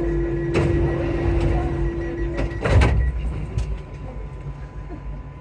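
Metro train's door-closing warning tone sounding steadily, cut off about two and a half seconds in as the sliding doors shut with a loud thud, followed by a low rumble.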